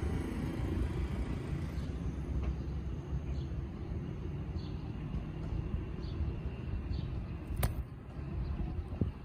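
Outdoor background noise: a steady low rumble with faint high ticks now and then, and one sharp click about three-quarters of the way through.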